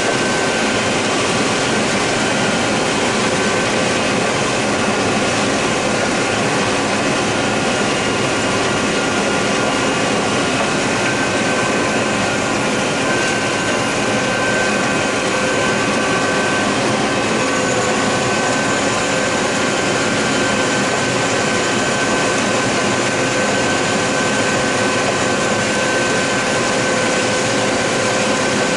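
Steady machine drone inside the cab of a John Deere 9600 combine harvesting corn: the diesel engine, threshing machinery and cab fan running together, with several steady whining tones over the noise.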